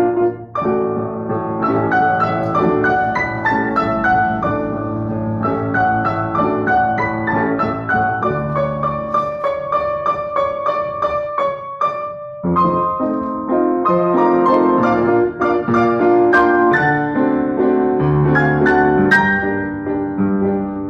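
Upright piano played four hands, a lively piece with many quick notes, heard over a video call. The music stops for a moment about twelve seconds in, then carries on.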